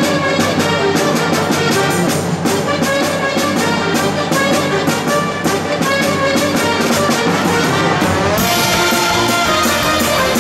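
Circus band music with brass over a steady beat, moving into a new, brighter section about eight seconds in.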